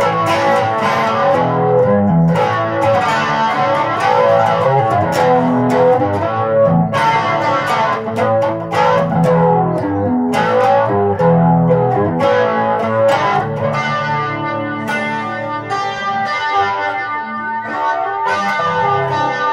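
Guitar being played solo: a run of chords and single notes struck one after another, each left ringing.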